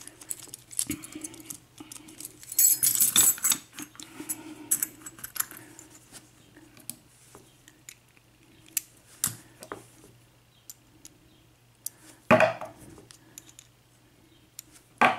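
Keys jangling and small metal clicks and knocks as keys and locks are handled, with a busy patch of jingling about three seconds in and a sharper knock about twelve seconds in.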